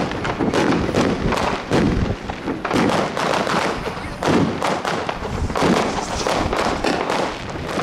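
Aerial fireworks bursting overhead: many sharp bangs and crackles in quick, overlapping succession.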